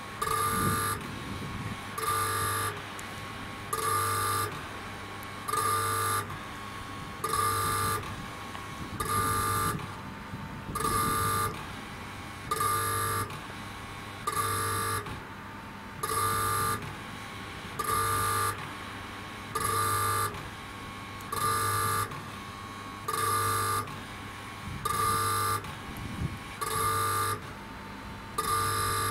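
Railway level-crossing warning hooter sounding in short, even blasts, about one every second and three-quarters, warning that a train is approaching.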